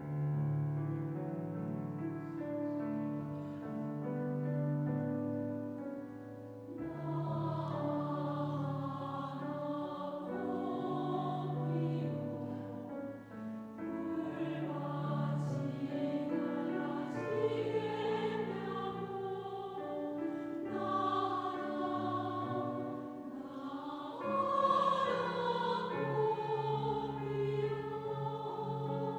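Choir singing with piano accompaniment; the piano plays alone at first and the voices come in about seven seconds in.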